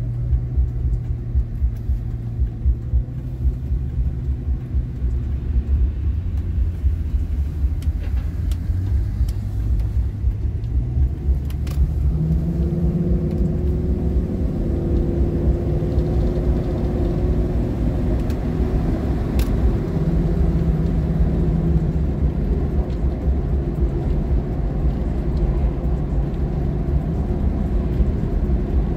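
Ford Excursion's 6.8-litre V10 engine running as the SUV drives, a steady low rumble whose engine note rises about twelve seconds in and holds at the higher pitch.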